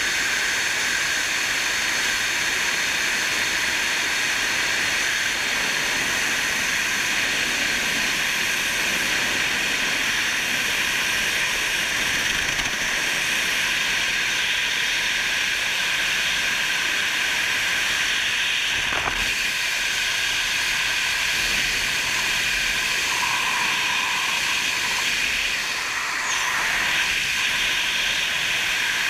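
Steady rushing wind noise from the airflow of wingsuit freefall over a body-mounted action camera, an even hiss that stays at the same level throughout. A brief click comes about two-thirds of the way through.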